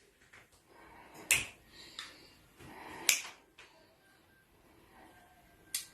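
Three sharp finger snaps, evenly spaced about a second and three quarters apart, with little else heard between them.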